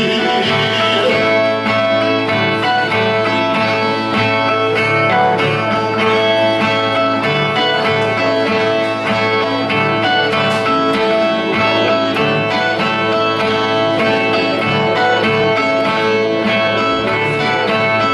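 Brazilian viola (the steel-strung folk guitar of cantoria) playing a steady, rhythmic instrumental baião of plucked and strummed notes, the interlude between sung stanzas of a repente.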